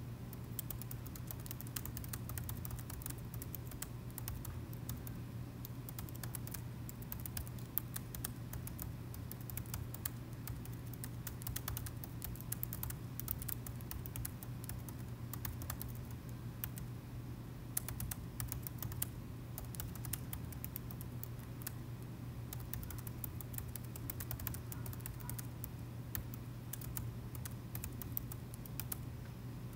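Typing on a laptop keyboard: quick, irregular key clicks in steady runs, over a constant low background hum.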